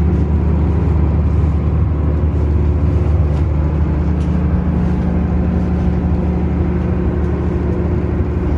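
Mobile diesel generator running at a steady speed with a loud, low drone and hum.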